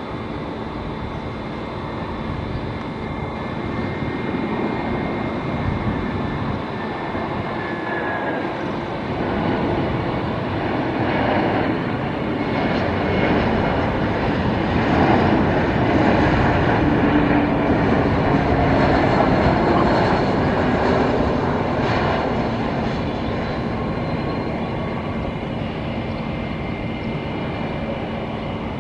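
Airbus A320's CFM56 jet engines on final approach: a steady rumble with thin whining tones that swells louder as the airliner passes by, then eases off as it comes down over the runway to land.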